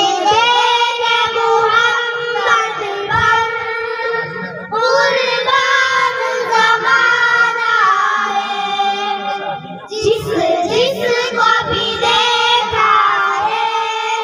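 A group of young girls singing a naat together, holding long, wavering notes, with short breaks for breath about five seconds in and again about ten seconds in.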